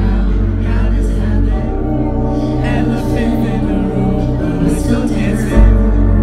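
Live house music played loud through a venue sound system: a woman sings into a microphone over a deep, sustained bass line. The bass swells to its loudest about five and a half seconds in.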